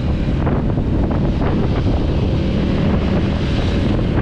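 Loud, steady wind buffeting the microphone of a moving motorcycle, with engine and road rumble underneath.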